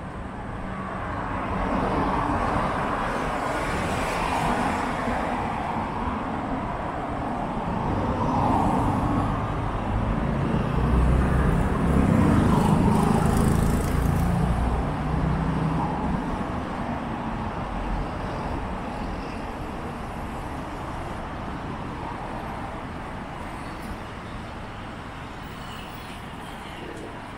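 City road traffic passing on the street beside the sidewalk: vehicles go by in swells, the loudest about halfway through with a low engine rumble, then the noise eases off.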